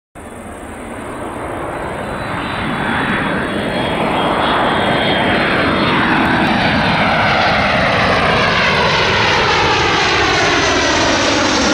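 Boeing C-32 (military Boeing 757-200) on landing approach with gear down, its twin Pratt & Whitney PW2040 turbofans growing louder over the first few seconds as it nears, then holding steady. The rush of engine noise carries a thin high whine and a sweeping, phasing sound as the aircraft closes in.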